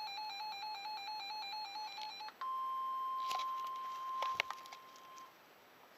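Weather alert radio sounding its alarm: a buzzy beep rapidly switching between two pitches, which stops about two seconds in. It gives way to the steady single-pitch NOAA Weather Radio 1050 Hz warning tone, lasting about three seconds with a few sharp clicks over it.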